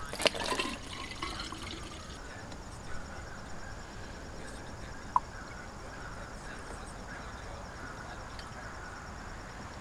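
Coolant pouring steadily from a gallon jug into the JCB skid steer's radiator filler, topping up a radiator that ran low. A short knock right at the start and a sharp click about five seconds in.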